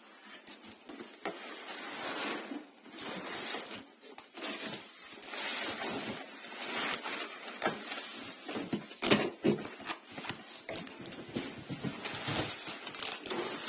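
Cardboard scraping and rustling as a boxed speaker is slid and worked out of a large cardboard shipping carton, with scattered knocks and taps of the boxes against each other; one sharp knock about nine seconds in.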